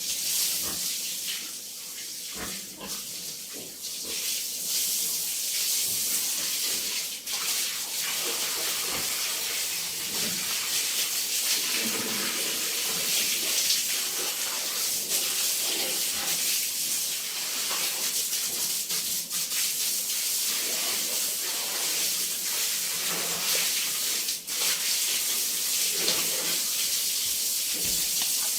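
Steady hissing spray of running water, as from a hose, with scattered knocks.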